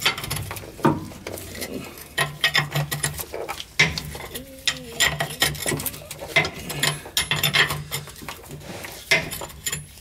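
Irregular metallic clinks and scrapes of a combination wrench working the rusty mounting nut off an air brake chamber, tool clattering on the nut and steel bracket with each turn.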